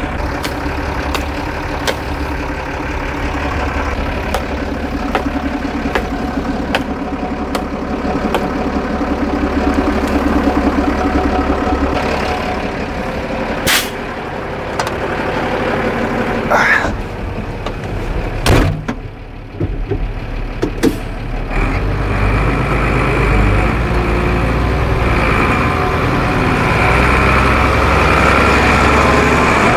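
Mercedes Unimog truck's diesel engine running at idle, then pulling forward at low speed and growing louder in the last third. A few sharp knocks come midway.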